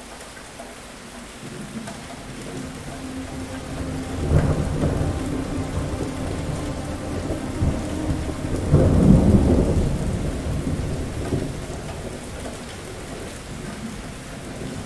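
Thunder rolling over steady rain. A low rumble builds about two seconds in and breaks sharply around four seconds. It swells again to its loudest near nine seconds, then dies away, leaving the rain.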